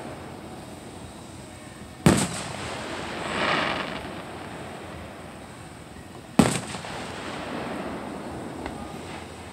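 Two distant aerial firework shells bursting, sharp booms about four seconds apart, with a brief rushing hiss swelling and fading between them.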